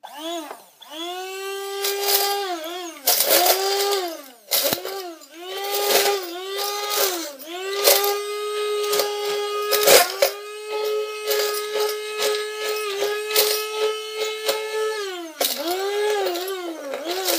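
Hand blender whirring as it chops dry cereal in a plastic container, the cereal pieces rattling and cracking against the plastic. The motor is pulsed on and off, its whine rising and sagging with each burst, then held on steadily for several seconds past the middle before pulsing again near the end.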